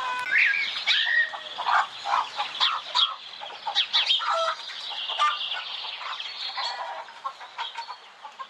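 A flock of chickens calling, with many short, overlapping high chirps and cheeps.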